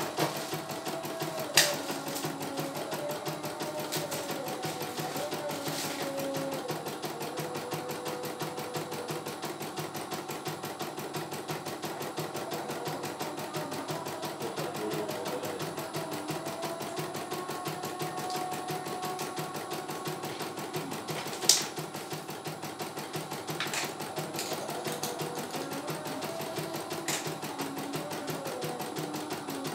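CNY E900 computerized embroidery machine stitching a design: a rapid, even needle clatter with a wavering motor whine underneath as the hoop is moved. A few sharp clicks stand out, the loudest about a second and a half in and about two-thirds of the way through.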